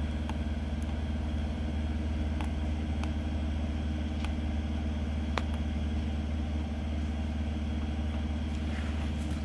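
Air compressor running steadily, a constant hum with a hiss of air, while it inflates a pipe-patch packer. A few faint ticks sound over it.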